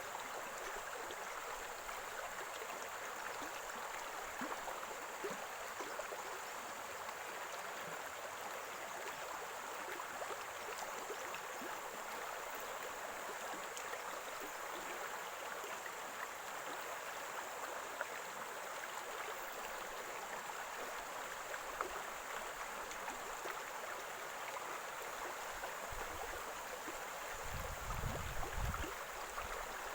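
Running water of a small stream gurgling steadily, with a short low rumble near the end.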